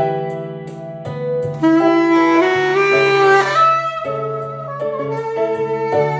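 Chempo soprano saxophone playing a melody of held and stepping notes, with a louder, higher phrase about two seconds in.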